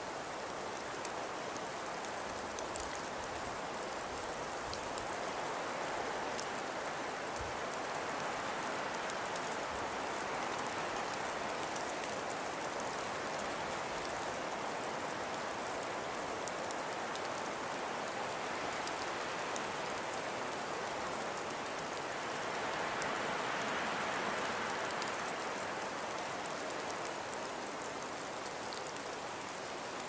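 Steady hiss of a snowstorm, swelling louder twice, with faint fine ticks scattered through it.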